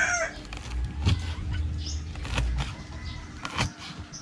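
A rooster's crow trails off at the very start. Then a low rumble runs under scattered clicks and taps from hands working raw ingredients into a rabbit carcass on banana leaves.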